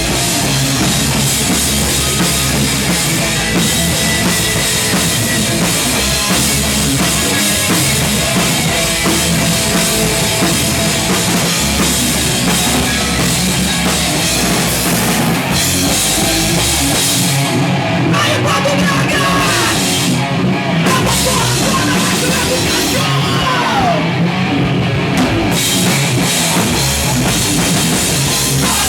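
Hard rock band playing live, an instrumental stretch with a full drum kit driving steadily under amplified guitars and bass.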